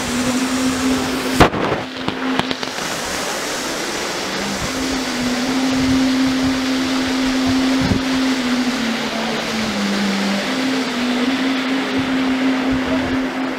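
Water splashing and sloshing as Asian elephants bathe and play in a pool, over a steady low hum that shifts in pitch a few times. A sharp knock about a second and a half in.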